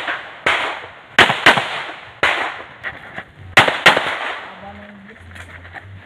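Pistol fired six times in a practical-shooting string: a single shot, a quick pair, another single, then another quick pair, each crack followed by a short echo. A quieter gap follows while the shooter moves to the next position.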